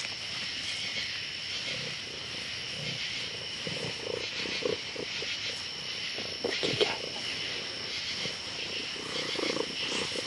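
Domestic cat purring, slowed to about a quarter of normal speed so that it becomes a low, slow, pulsing rumble, with a louder patch about two-thirds of the way through. It sits over a steady high-pitched drone of night insects, also slowed down.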